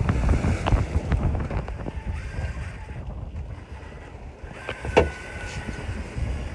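Wind buffeting the microphone and water rushing past a sailboat's hull while sailing, with one sharp knock about five seconds in.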